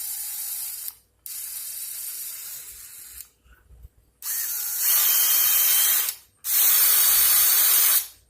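Bosch GSR 10.8 V-EC brushless cordless drill running unloaded in four short trigger bursts of about one to two seconds each. The last two bursts are clearly louder than the first two.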